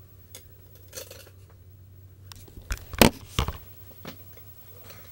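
A scatter of sharp clicks and knocks over a steady low hum; the two loudest knocks come close together about three seconds in.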